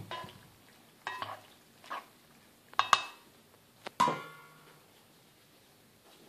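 A ladle and kitchenware knocking and clinking against a pot as cooked penne is stirred: about five sharp knocks roughly a second apart. The last, about four seconds in, is the loudest and rings briefly.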